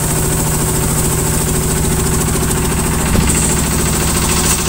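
Engine on a bagang lift-net fishing boat running steadily at a constant speed, with an even low throb, and a single light knock about three seconds in.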